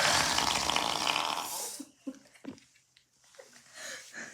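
A long, loud, rasping fart noise lasting about two seconds, which then cuts off, followed by a few faint knocks and soft breaths.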